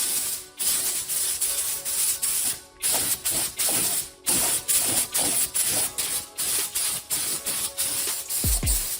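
Paint spray gun hissing in short, repeated bursts under background music with a steady beat.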